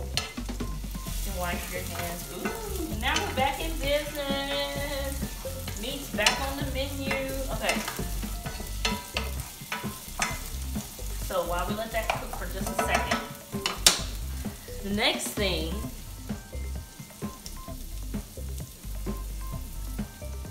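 Chopped onion sizzling in hot oil in a saucepan while a wooden spoon stirs and scrapes it around the pan, with two sharp knocks of the spoon against the pan. A few wavering pitched sounds come and go over the frying.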